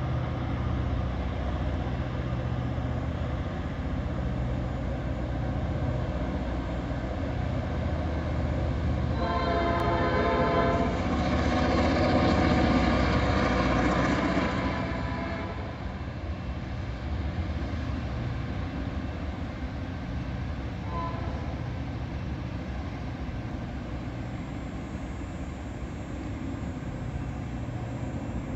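Diesel freight locomotives rumbling through a level crossing, with a brief horn blast about ten seconds in. The sound is loudest around the middle as the locomotives pass, then settles into the steadier rumble of the freight cars rolling by.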